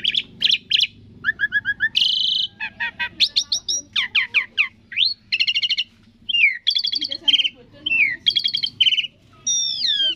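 Asian pied starling (jalak suren) singing a varied song: quick runs of chattering notes mixed with clear whistles and sweeping slurs that rise and fall, one phrase after another with short gaps.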